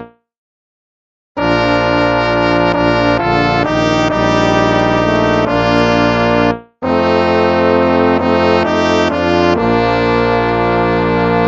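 Instrumental hymn music with held, brass-like tones. It starts after about a second of silence and breaks off briefly a little past the middle before going on.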